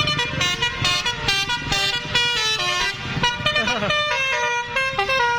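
A bus's 'basuri' telolet horn, a multi-trumpet musical air horn, playing a fast melody of short notes that step up and down in pitch, one note sliding downward about three and a half seconds in. A low rumble runs beneath.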